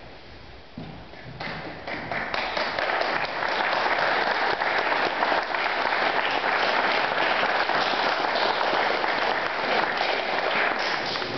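An audience applauding, many hands clapping together. The clapping starts about a second and a half in, builds quickly and tails off near the end.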